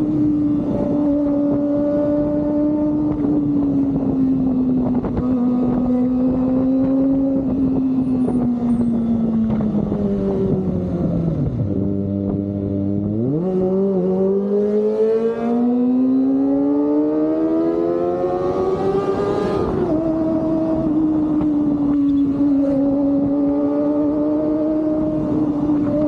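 Kawasaki ZX-25R inline-four engine through an Austin Racing aftermarket exhaust, running at steady high revs while riding. About twelve seconds in the revs drop sharply, then climb steadily for several seconds before falling back at a gear change near twenty seconds to a steady cruise.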